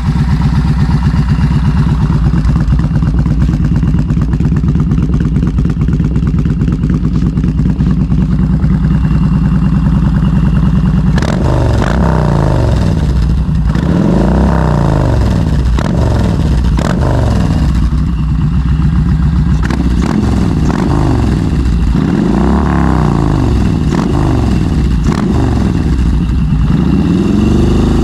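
Yamaha Bolt's air-cooled V-twin running through an aftermarket exhaust: a steady loping idle, then a series of throttle blips from about a third of the way in, each rev rising and falling, before it drops back to idle near the end.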